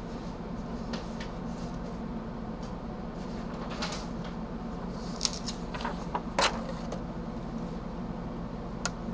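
Steady low room hum with a handful of scattered light clicks and knocks, the sharpest about six and a half seconds in.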